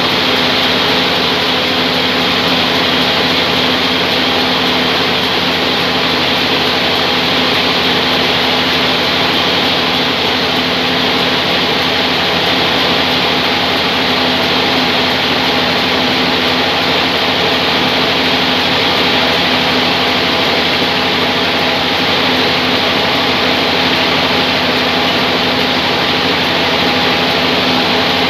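Band sawmill running steadily: a loud, even machine noise with a few held tones and no breaks.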